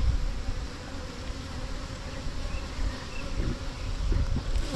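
A colony of honeybees buzzing in a steady hum around their exposed comb, with low rumbling underneath.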